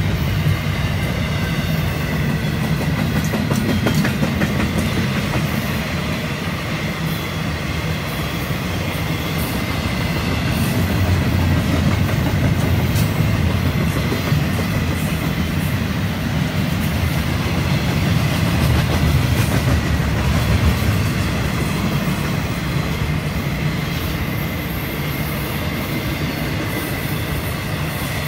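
Freight train of double-stack intermodal well cars rolling steadily past, a constant low rumble with the wheels clattering on the rails. A faint steady high-pitched tone runs underneath.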